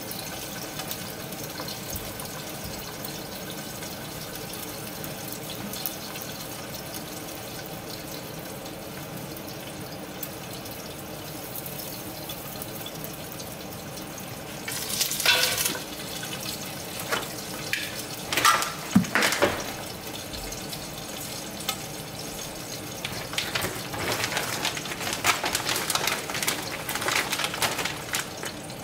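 Dumplings steam-frying in water in a covered nonstick frying pan: a steady sizzling hiss for the first half, then sharp crackles and spits from about halfway through that grow busier near the end.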